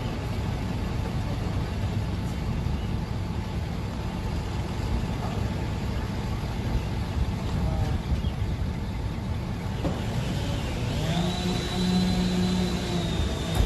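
Steady rumbling noise like a vehicle running. Near the end a pitched tone rises and then holds steady for two or three seconds before cutting off.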